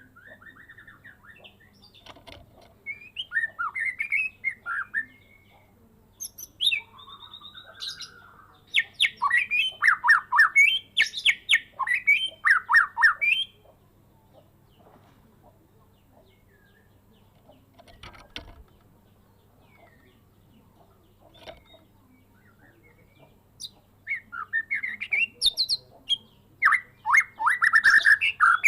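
White-rumped shama (Medan murai) singing a varied song packed with learned phrases, fast whistles and trills, in three bouts with long pauses between, the middle bout the longest and loudest.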